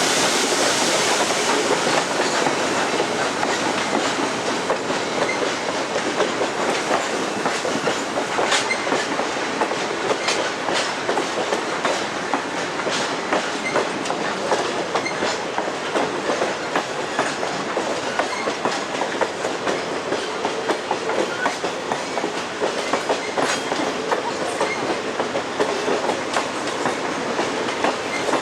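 A train rolling past, its wheels clicking irregularly over the rail joints with a steady rumble of rolling noise. A high hiss fades out about a second in.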